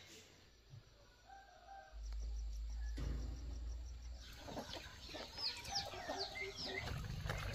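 Chickens: a rooster crowing faintly about a second in, then hens clucking and many short high chirping calls from about four seconds in, over a low steady rumble that starts about two seconds in.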